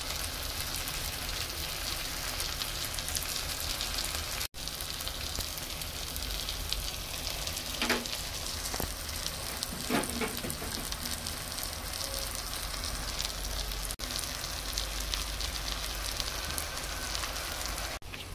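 Diced butternut squash, onion, tomato and peppers frying in oil in a pan: a steady sizzle with fine crackles.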